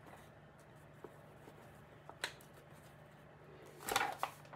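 Quiet kitchen handling noises while flour is measured out: a light knock about two seconds in and a short rustle near the end, over a low steady hum.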